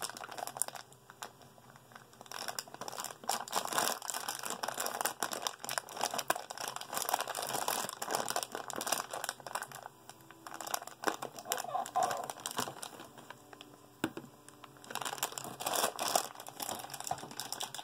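Foil blind bag of a Funko Mystery Mini crinkling as it is handled and opened, in irregular crackling bursts with a few short pauses.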